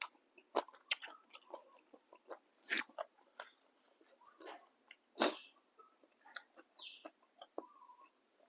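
A person eating boat noodle soup: irregular short slurps and chewing and mouth noises, with a few sharper bursts, the loudest about five seconds in.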